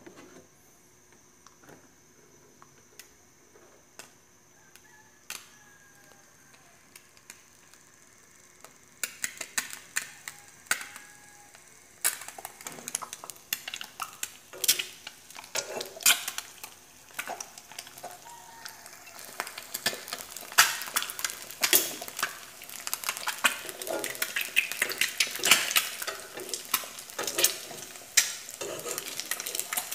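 Egg sizzling in a nonstick frying pan while a metal spoon scrapes and taps against the pan. Faint with only a few clicks at first, the sizzle and spoon clatter pick up about nine seconds in and grow louder from about twelve seconds on.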